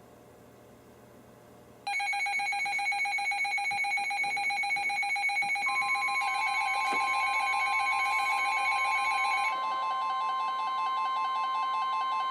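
Several weather radio receivers sounding their electronic alert alarms at once, with steady and pulsing beeps that start suddenly about two seconds in. A few seconds later the steady 1050 Hz NOAA Weather Radio warning alarm tone from the broadcast joins them and holds.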